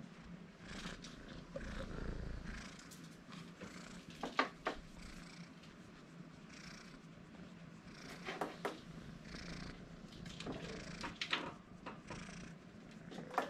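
A tabby kitten purring steadily while being stroked, close to the microphone. A few short clicks and taps sound over the purr, the sharpest about four seconds in and again around eight seconds in.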